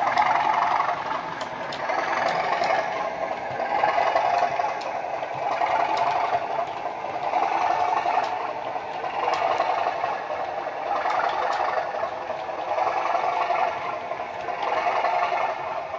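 Bachmann Class 37 model's Legomanbiffo DCC sound decoder playing its English Electric V12 diesel working hard (the enthusiasts' "thrash"), heard through the model's small onboard speaker. The engine note swells and eases about every two seconds, with light clicks running under it.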